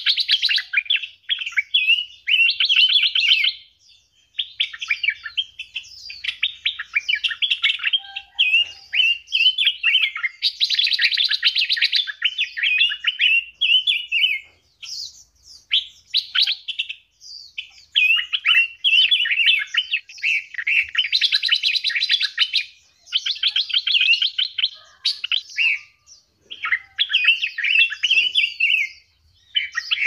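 Cage songbirds in an aviary singing in fast, varied warbling phrases and trills. The song comes in bursts of a second or few, with short pauses between them.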